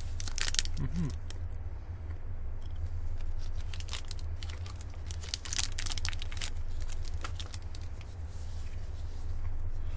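A plastic Snickers Pecan candy-bar wrapper being torn open and crinkled in several short bursts of crackling, over a steady low hum.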